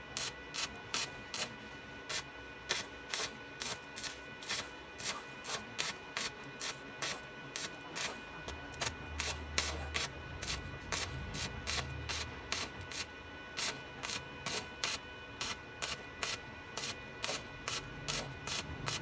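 Background music with a steady beat of about three crisp percussive hits a second, over sustained tones, with deep bass notes coming in around the middle.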